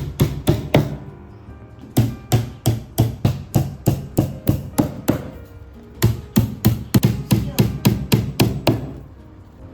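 Hammer striking wood in quick, even blows of about three a second, in three runs with short pauses, during furniture assembly.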